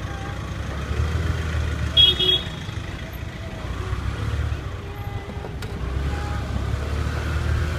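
Street traffic heard while riding along, a steady low rumble. About two seconds in comes the loudest sound, a vehicle horn giving a short, high-pitched double toot.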